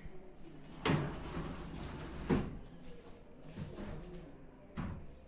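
Wooden knocks and sliding clatter from a sofa-cum-bed's frame being worked open, with sharp knocks about a second in, just after two seconds, and near the end.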